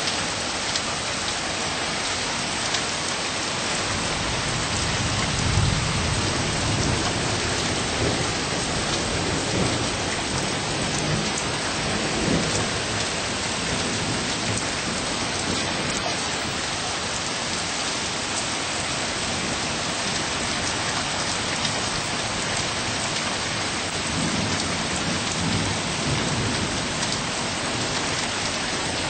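Steady rain falling, with rolls of thunder that swell and fade several times, the strongest about five seconds in and again near the end.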